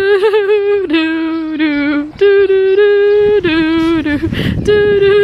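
A wordless tune of long held notes stepping between a few pitches, with slight wavers at the note changes. A short burst of rushing noise breaks in about four seconds in.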